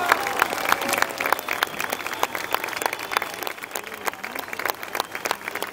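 Audience applause for a symphony orchestra, dense clapping that slowly thins out. The orchestra's final held chord breaks off right at the start.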